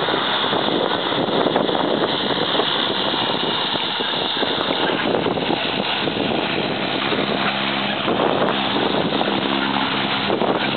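Small jump plane's engine and propeller running steadily under a loud rush of air. About seven seconds in, a low, even hum of several steady tones comes up through the noise.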